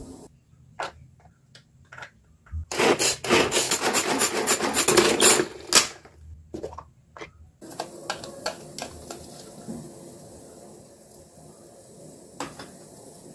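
A small round plastic kitchen gadget twisted hard in both hands, giving about three seconds of loud rasping, grinding strokes as it minces garlic, then a few light plastic clicks.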